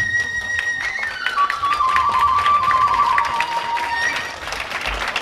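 Kagura hayashi music: a bamboo flute holds a high note, then slides down in steps to lower held notes, over fast light clicking.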